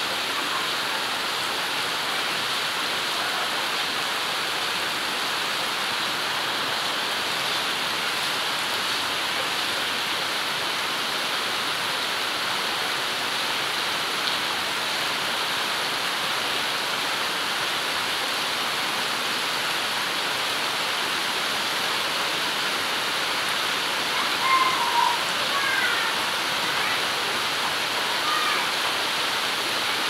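Heavy rain falling steadily on tree foliage, a constant even hiss. A few short high chirps come through about 25 seconds in.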